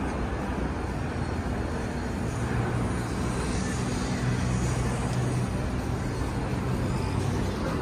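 City street traffic noise, with a low engine hum from a vehicle that grows louder from about two seconds in and fades near the end.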